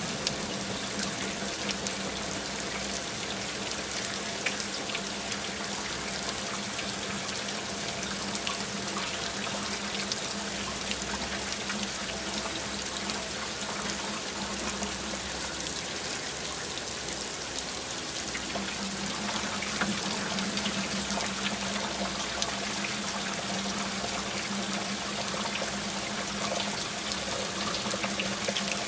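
Steady rain with water running and trickling: a dense, even hiss with many small drip ticks.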